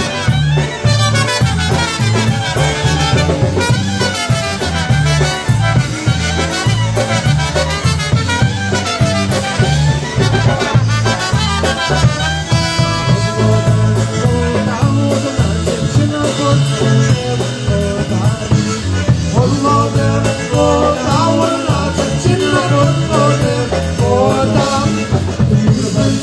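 Live polka band playing, with a steady bass beat.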